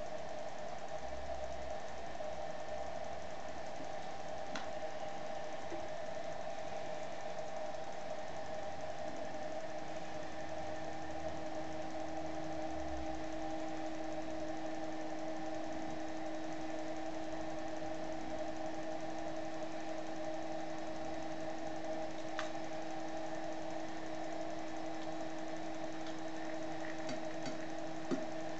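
Steady machine hum with several held tones. A lower tone joins about nine seconds in, and a few faint clicks come near the end.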